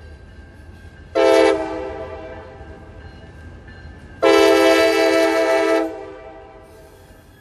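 A CSX GP38-3 diesel locomotive's multi-note air horn sounds a short blast about a second in, then a longer blast of about a second and a half, each ringing on briefly afterwards. A steady low rumble lies underneath.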